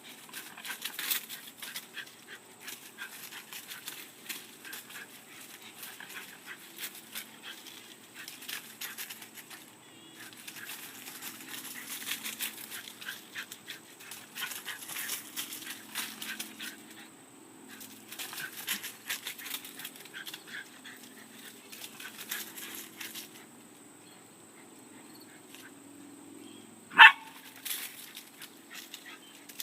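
A dog at play: scuffling and rustling with many light clicks, and one short, sharp bark near the end.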